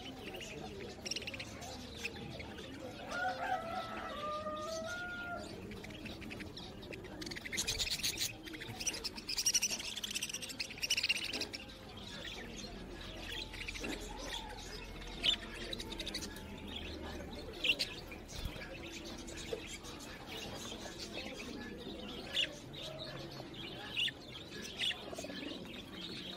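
Birds chirping in the background, with a few short clicks and rustles of hands handling wires and parts.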